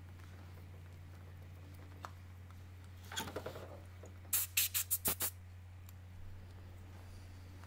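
Small metallic clicks from a Zenith caliber 40-T wristwatch as its crown and winding stem are fitted back into the movement. A quick run of faint clicks comes about three seconds in, then six sharp clicks in quick succession, over a steady low hum.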